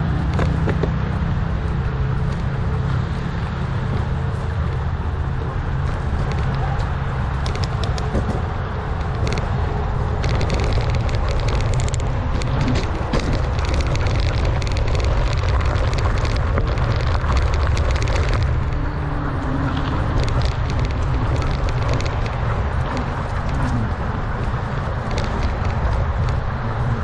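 Mountain bike rolling fast along a dirt trail, with a steady low wind rumble on the action camera's microphone and tyre noise. Scattered clicks and rattles from the bike over rough ground come through from about seven seconds in, thickest between ten and eighteen seconds.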